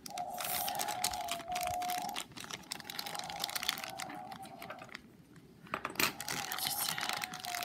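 Clear plastic bag crinkling and crackling as fingers handle it and pick at its taped seal, with a brief pause about five seconds in.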